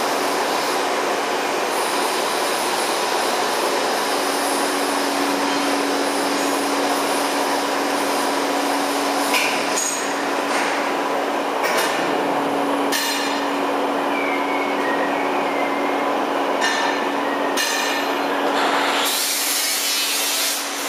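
Plastic granulator running, its rotor chopping material with a loud, steady grinding noise. A steady hum joins about four seconds in, and several sharp cracks break through in the second half.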